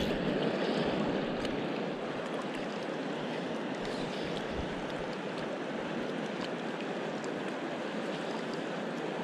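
Shallow river running over cobbles: a steady rush of flowing water.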